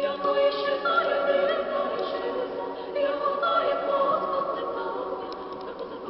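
A choir singing a sacred choral piece in held chords, entering strongly at the start, swelling about one second and again about three and a half seconds in, then easing off toward the end.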